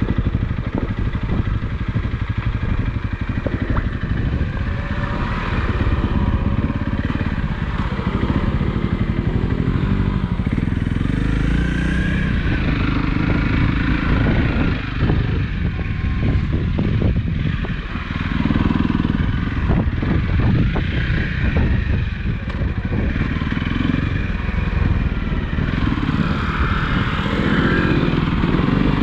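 Motorcycle engine running steadily, its revs rising and falling, with frequent knocks and rattles over it.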